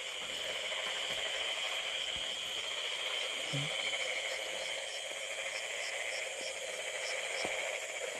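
Night insect chorus: crickets and other insects trilling steadily at several high pitches. A fainter chirp repeats a few times a second through the middle. There is a short low sound about three and a half seconds in.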